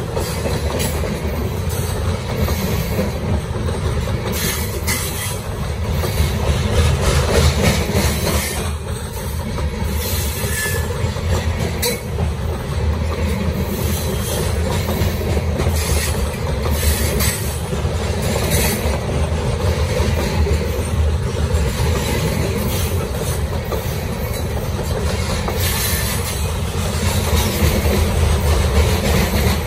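Freight train of covered hopper cars rolling past close by: a steady, loud rumble of steel wheels on rail, with scattered clicks and clacks as the wheels pass over the track.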